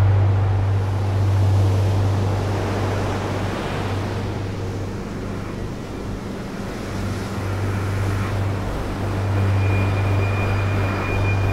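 Low, steady rumbling drone under a rushing, wind-like hiss, easing off slightly in the middle; a thin, steady high tone joins near the end.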